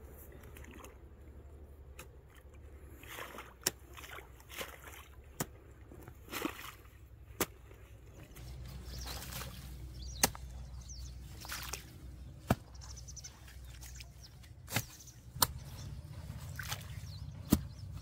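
A hoe chopping into wet mud and earth at the edge of a pond, a sharp strike every second or two, with splashing and sloshing of muddy water between strokes.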